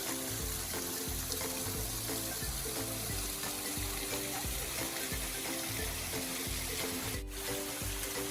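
Background music with a steady bass beat, laid over a constant rushing hiss of flowing water.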